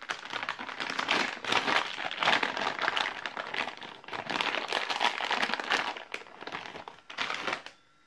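Clear plastic packaging bag crinkling as hands open it and take out rotary switches, in dense irregular crackles that stop shortly before the end.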